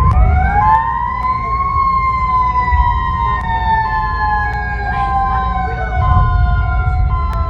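Emergency alarm siren winding up in pitch over about a second and a half, then slowly sliding down, layered with a steadier two-note alternating tone and a continuous low rumble.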